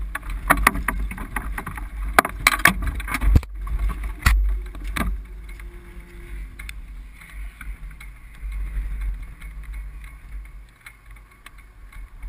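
Wind buffeting an onboard camera's microphone on a stationary single-seater race car, a low rumble throughout, with a cluster of sharp knocks and clicks in the first five seconds and only faint ticks after that.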